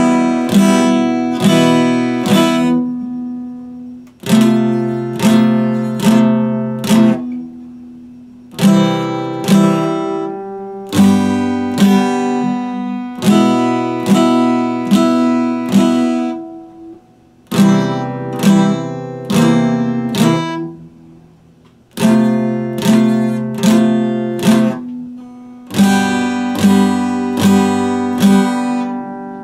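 Epiphone acoustic guitar strummed in chords, in runs of three or four strokes that ring out, with short breaks between phrases.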